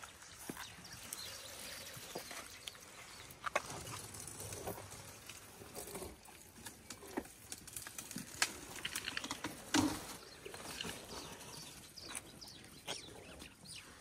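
An African elephant browsing a dry thorn bush: irregular snaps, crackles and rustling as its trunk pulls and breaks thorny branches and it feeds on them. The loudest crackle comes about ten seconds in.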